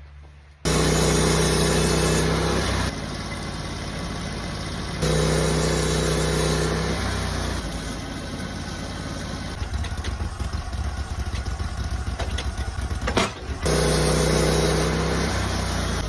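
Portable sawmill's engine running, starting abruptly under a second in. Its level and pitch shift in steps several times, with a strong steady hum coming and going.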